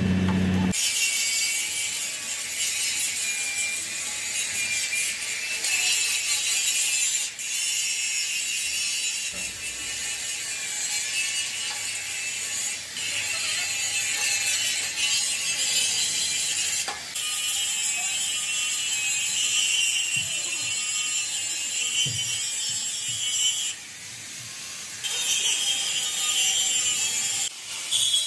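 Handheld angle grinder scouring rust off the steel of a radiator tank: a loud, high whine with a scraping edge. It breaks off briefly a few times and starts again.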